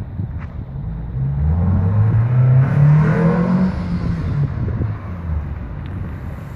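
MG ZR with an aftermarket exhaust and custom air filter accelerating past, its engine note climbing from about a second in and loudest about three seconds in, then dropping in pitch and fading as the car moves away.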